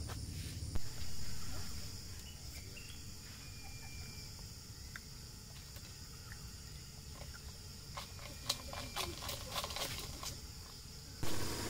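Steady high-pitched drone of insects, with a knock about a second in and a run of light clicks of a spoon against a plastic bowl near the end.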